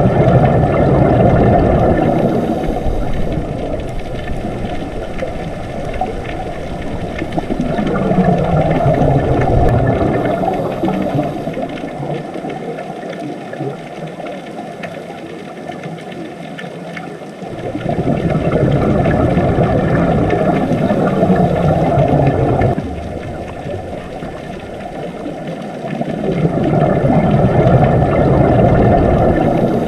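Muffled rushing underwater ambience, swelling and fading in long slow waves about every nine seconds, with one sudden drop about two-thirds of the way through.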